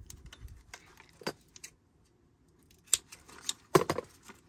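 Light clicks and small rattles of craft tools and supplies being picked up and handled on a desk, as glue dots are fetched. A few sharp clicks come about a second in and around three seconds, and a louder cluster of clicks near the end.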